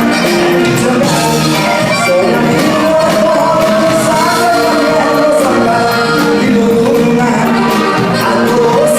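Live regional Mexican band music with a man singing over it, holding long notes.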